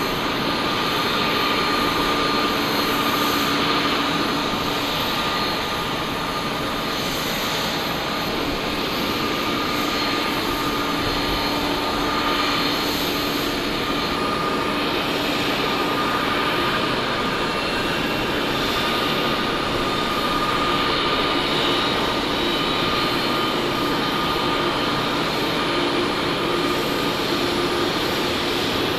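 Jet engines of a taxiing Boeing 787-9 running at low taxi power: a steady rushing whine with a couple of held tones.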